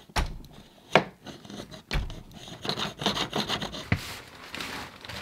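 A wire snake being pushed through a thermostat base plate into a wall cavity, scraping and rubbing against wood and drywall, with several sharp knocks about a second apart.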